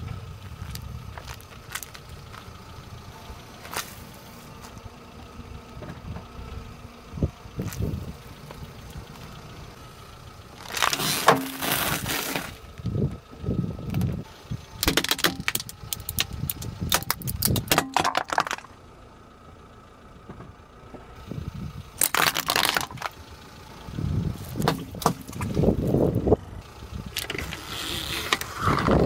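A car tyre rolling slowly over sealed packets of crackers and crisps, crushing them: the packets crinkle and the snacks inside crunch and crackle in several bursts, with quieter stretches of the tyre rolling over grit in between.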